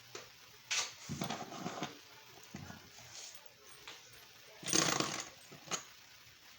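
Irregular clicks and clattering knocks of small hard objects, the loudest a little before five seconds in.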